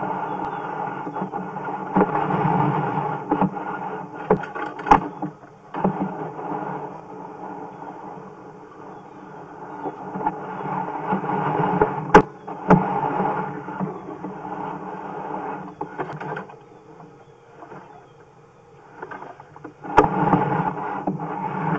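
Sewer inspection camera being pulled back through a sewer pipe on its push cable: a steady mechanical hum with scraping, and a few sharp knocks as the camera head strikes the pipe wall, dropping quieter for a couple of seconds near the end.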